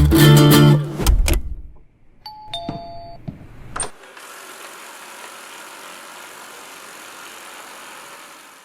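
Guitar music stops about a second in, then a two-note falling electronic chime sounds. From about four seconds in, a steady, even hiss follows.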